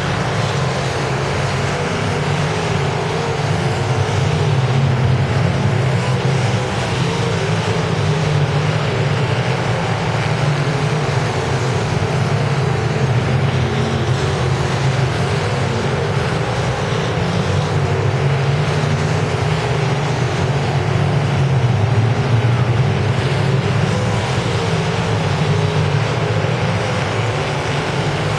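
A field of dirt-track race cars racing on a dirt oval, their engines running together in a steady, loud blend.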